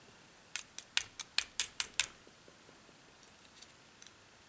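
Small metal clicks of tweezers working against the lock body while a spring and pin are picked out of a pin chamber: a quick run of about eight sharp clicks, then a few faint ones near the end.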